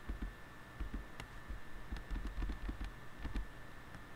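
Faint irregular computer clicks while slides are being changed, over soft low thumps of handling noise on the microphone.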